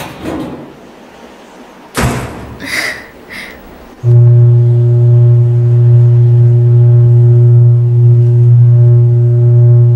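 Loud, steady electrical hum of overhead power lines and a pole-mounted transformer, a low drone that cuts in about four seconds in and holds unbroken, with fainter overtones above it.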